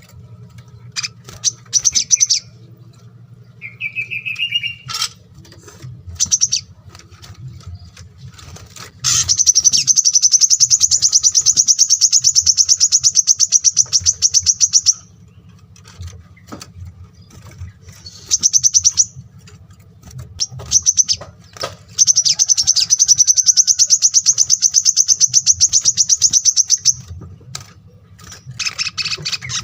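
Small songbirds of the sunbird type singing: scattered sharp chirps and a short rising note, then two long, very fast, high trills of several seconds each, about a third and about three quarters of the way through.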